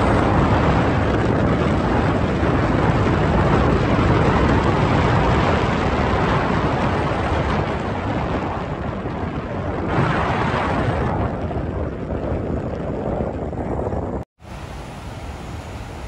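Wind rushing over the microphone and road noise from a moving vehicle, loud and unsteady. About 14 seconds in it cuts off sharply, and a quieter, steady rush of a swollen, fast-flowing river takes its place.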